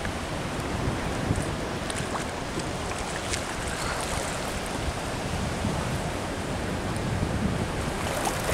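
Steady wind noise on the microphone over choppy sea water, with a few faint clicks.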